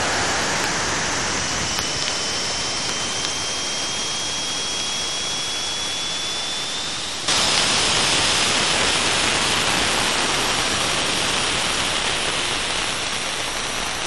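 Cassini spacecraft's radio and plasma wave recording from its dive through the gap between Saturn and its rings, played back as sound: a steady hiss with a faint thin tone slowly rising in pitch. About seven seconds in, the hiss jumps abruptly louder and brighter and holds steady.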